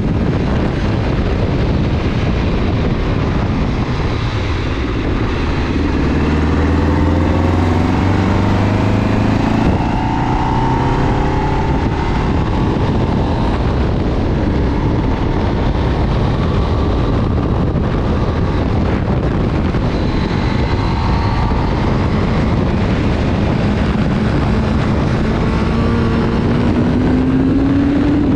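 A motor vehicle's engine running under way, its pitch rising and falling several times as the revs change, over steady road and wind noise.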